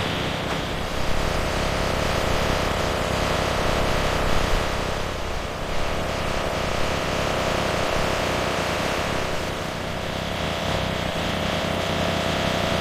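Steady mechanical drone of running machinery or an engine, with many fixed hum tones under a dense noisy rumble.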